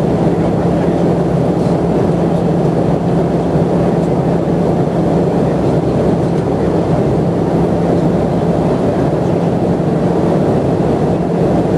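Airliner cabin noise in flight: a loud, steady rush of engine and airflow noise with a low, even drone underneath.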